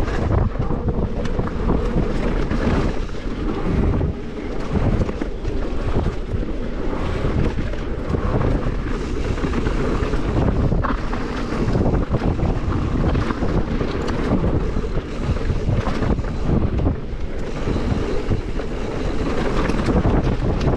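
Wind buffeting the action camera's microphone during a fast mountain bike descent, mixed with knobby tyres rolling over dirt and the bike knocking and rattling over bumps.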